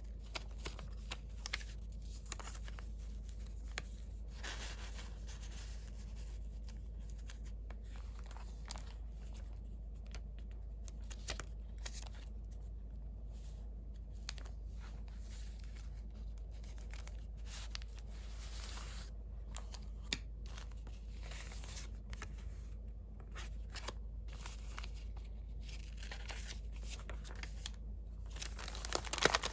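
Paper handled close to the microphone: die-cut paper pieces and cards rustling and sliding against each other as they are tucked into paper pockets, in many short scratchy strokes. Near the end, a thin translucent paper envelope crinkles more loudly.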